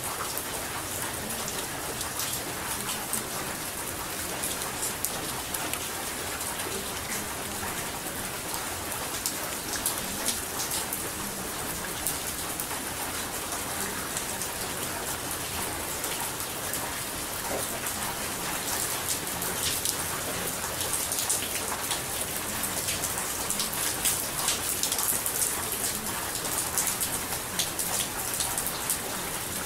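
Steady rain falling, with many small, sharp drop ticks over an even hiss.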